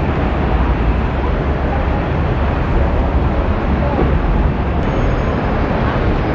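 Steady, loud vehicle rumble with a hiss above it.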